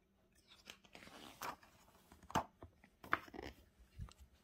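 Pages of a picture book being turned and handled: several short, soft paper rustles and light taps.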